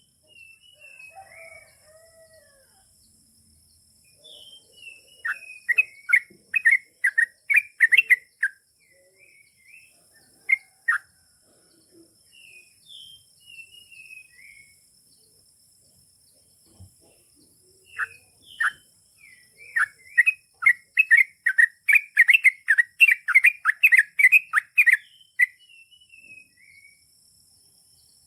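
Yellow-vented bulbul (trucukan) singing: two long runs of quick, loud bubbling notes, one about five seconds in and one about twenty seconds in, with scattered short gliding chirps between them. A faint steady high-pitched hiss runs underneath.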